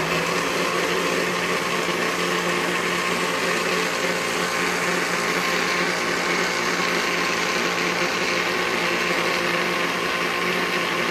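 Countertop blender running at a steady speed, blending a liquid soursop puree thinned with cold water.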